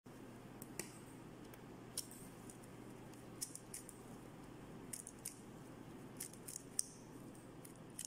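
Plastic 3x3 Rubik's cube layers clicking as they are turned one-handed. The short, sharp clicks come at an uneven pace, sometimes two or three in quick succession.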